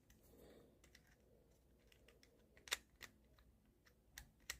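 Near silence with a few faint, light clicks and taps, four or so in the second half: small plastic parts of a ball mouse being handled while its rollers are cleaned.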